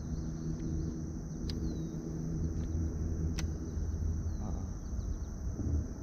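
Insects droning steadily in one high, even band over a low rumble, with two sharp clicks a couple of seconds apart.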